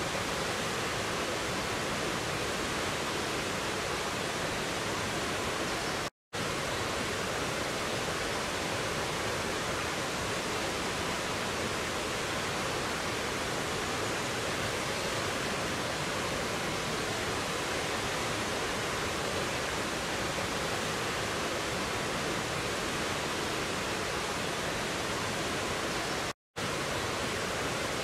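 Stream cascading over rocks: a steady, even rush of water, cut to silence for a split second twice, about six seconds in and near the end.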